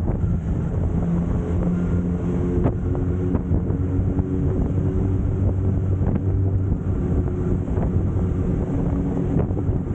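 Suzuki Katana motorcycle engine running steadily while riding, with heavy wind buffeting on the microphone.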